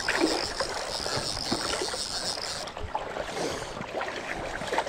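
River current gurgling and splashing close by, with many small irregular splashes. A steady high hiss lies over it and drops out for about two seconds in the middle.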